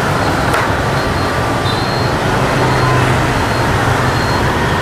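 Steady road traffic noise from a busy street, with engines humming low, and a single short click about half a second in.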